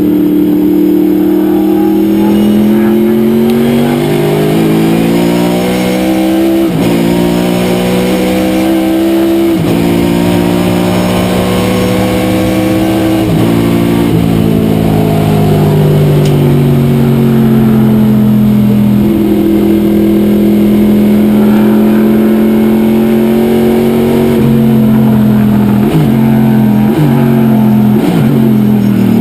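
Corvette C6 sports sedan race car's V8 engine at race speed: the revs climb and drop sharply at each upshift several times, then fall away. Near the end come a series of quick throttle blips on the downshifts.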